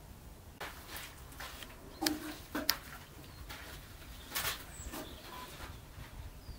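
Red deer moving about in a muddy wallow: scattered short rustles, steps and wet splashes, the loudest about two and a half seconds in and again past the middle.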